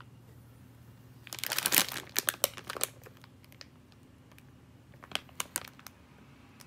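Plastic film packet of chilled yakisoba noodles crinkling as it is picked up and handled. There is a dense burst of crackling starting about a second in, then a few scattered crinkles.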